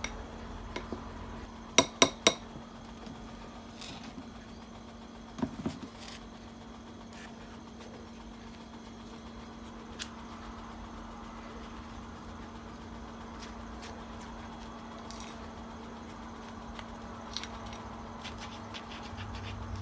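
Plastic spoon stirring kinako (roasted soybean flour) with sugar on a ceramic plate, with a few sharp clinks of the spoon against the plate, the loudest three in quick succession about two seconds in. A steady low hum runs underneath.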